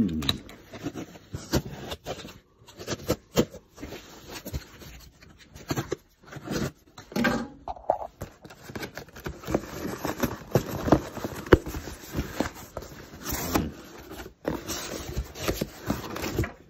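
Cardboard shipping box being handled and opened by hand: an irregular run of scrapes, rustles and light knocks as the box is turned and its flaps are pulled open.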